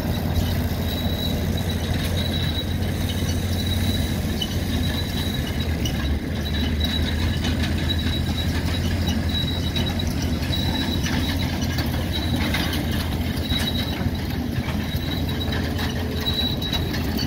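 Machinery running steadily with a constant low drone, a high-pitched squeak repeating about every second, and scattered light clicking.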